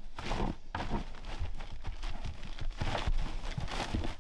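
Pregnant Weimaraner pawing, scratching and treading on fleece blankets, making irregular rustling and scuffing with soft thumps: nesting before labour.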